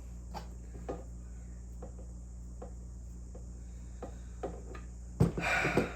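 Small scattered clicks and taps of wires and small terminal screws being handled, over a steady low hum and a constant high-pitched whine. About five seconds in comes a louder, brief scraping rustle.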